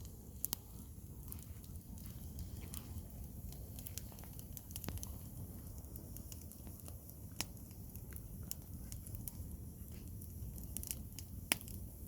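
Wood fire crackling: irregular sharp pops and snaps, a few louder ones, over a low steady rumble.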